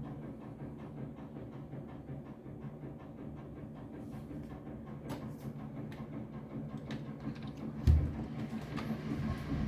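A steady low hum with a few faint ticks, and one heavy, low thud about eight seconds in. The thud is the recurring banging noise being recorded, its source unknown.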